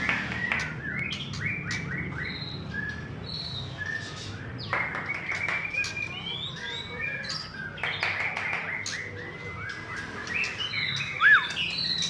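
Many caged songbirds chirping, whistling and clicking at once, white-rumped shamas among them, in a dense overlapping chorus. A loud, sharp looping whistle stands out near the end.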